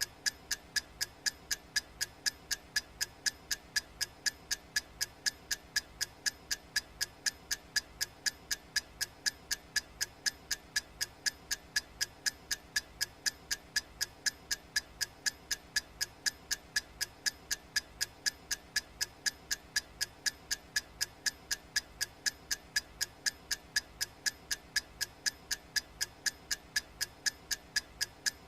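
Clock ticking sound effect: sharp, evenly spaced ticks, a few every second, each with a slight ringing tone, over a faint steady hiss.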